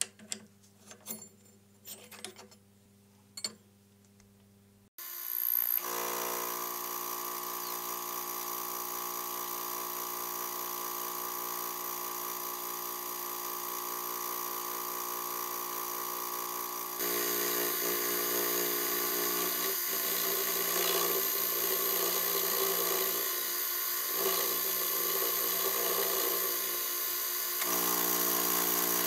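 A few light clicks, then a milling machine starts cutting: the spindle runs steadily with an end mill cutting a slot in a metal bar, a continuous whine with several steady tones. It gets louder about two-thirds of the way through and again just before the end.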